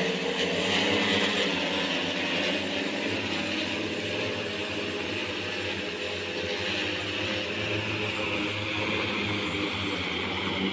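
Multirotor agricultural spray drone's rotors running with a steady buzzing hum as it descends to land.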